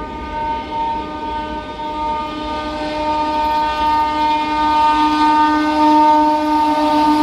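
Indian express train's horn sounding one long continuous blast, a chord of several steady tones, growing louder as the train approaches at speed, with the rumble of the train underneath.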